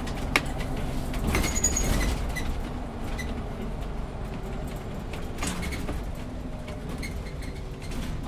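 City bus running, heard from the driver's cab: a steady low rumble with scattered clicks and rattles, a sharp click just under half a second in and a louder stretch of rattling about a second in.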